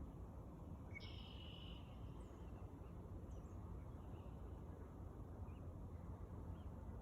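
Wild songbirds calling: one clear, slightly buzzy call about a second in, then faint, scattered short chirps, over a steady low background hiss.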